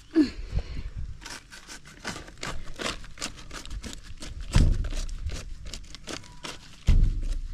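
Weeds being pulled up by hand: a rapid run of rustling, crackling and tearing of plant stems and leaves, with three dull thumps, one at the start, one past halfway and one near the end.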